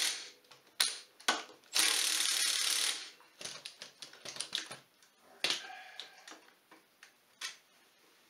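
Cordless power driver with a socket briefly spins a half-inch brake caliper bolt on an ATV, running for about a second after two short blips. Light metallic clicks of the socket and loosened bolt follow.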